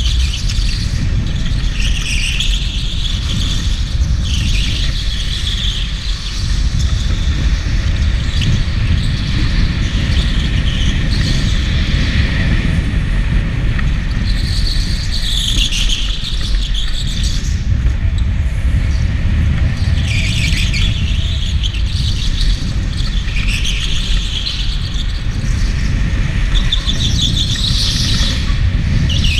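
Electric go-kart tyres squealing in repeated short bursts as the kart corners on a smooth concrete floor, over a steady low rumble of the kart running.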